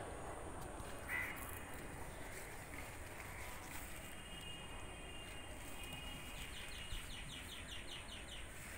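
Faint outdoor ambience with birds calling: one short call about a second in, then a quick run of repeated high chirps near the end.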